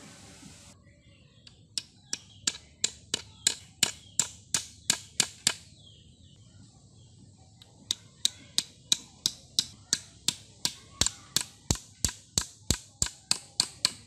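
Small hammer tapping repeatedly on a bamboo trap frame, about three sharp strikes a second. The strikes come in two runs, starting about two seconds in, stopping briefly near the middle and starting again.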